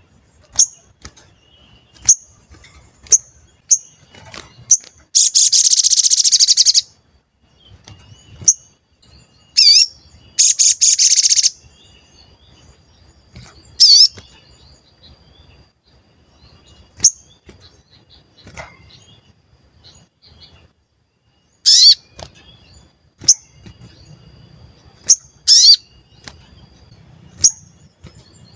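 A sogon bird singing its 'cuit cuit' call: sharp single high chirps every second or so, broken twice by a rapid, buzzy trill of about a second and a half. A few quick down-slurred whistles come in between.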